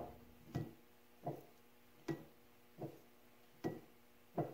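Crankshaft of a Franklin valveless oil field engine rocked back and forth by hand in its worn main bearing, clunking about six times at an even pace, each knock with a short metallic ring. The play is excessive: the bearing is very loose.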